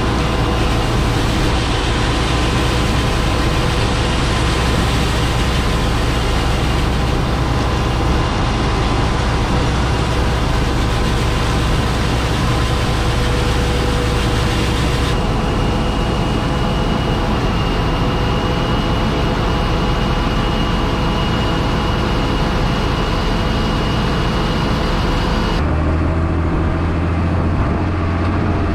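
Combine harvester running while harvesting wheat: a loud, steady drone of engine and machinery with a few steady whining tones. The sound changes abruptly twice, about halfway through and near the end.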